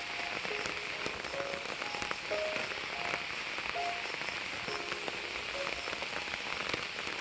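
Soft background music, a slow melody of short single notes, over a steady high hiss.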